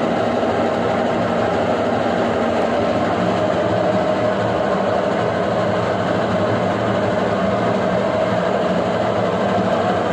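Brastemp BWK11 washing machine running with a steady, unbroken mechanical hum.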